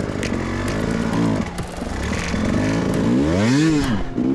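Husqvarna enduro motorcycle engine, recorded onboard, revving up and down in repeated bursts under load on a loose rocky climb. The biggest rise and fall in pitch comes near the end.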